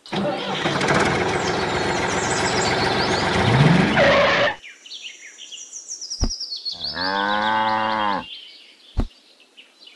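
A tractor engine runs and cuts off about four and a half seconds in. A few seconds later a cow moos once, about a second and a half long, with two short clicks around it.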